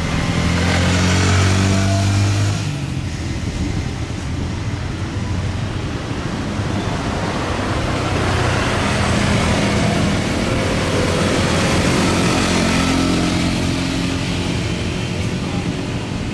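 Engine noise of passing vehicles: a low, steady engine hum for the first few seconds, then a broad rush of engine noise that swells and fades in the second half.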